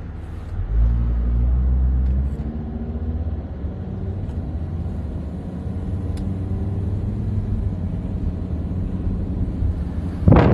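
Car driving, heard from inside the cabin: a steady low rumble of engine and road noise, heavier for the first two seconds. A short loud rush of noise near the end.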